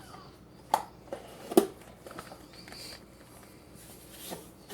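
Two sharp knocks about a second apart, in an otherwise quiet room.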